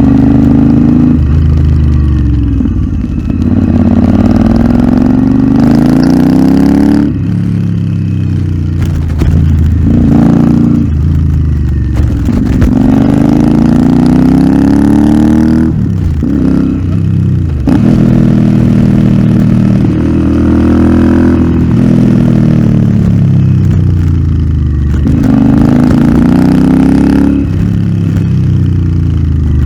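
Royal Enfield Interceptor 650's parallel-twin engine through an aftermarket Nuke exhaust, pulling hard with a rising pitch and then backing off and dropping again, over and over, as the bike is ridden briskly.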